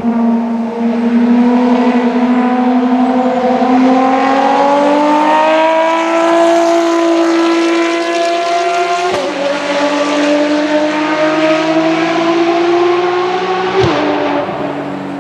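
Ferrari track car's engine under hard acceleration, its pitch climbing steadily, with a sharp upshift about nine seconds in and another near the end.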